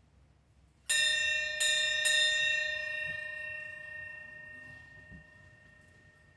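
A bell struck three times in quick succession about a second in, its ringing fading away slowly over the next few seconds: the bell rung as the priest enters to begin Mass.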